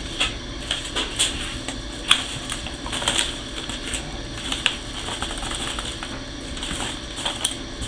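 Irregular light clicks and taps from small items and packaging being handled on a glass tabletop, sharpest about two seconds in.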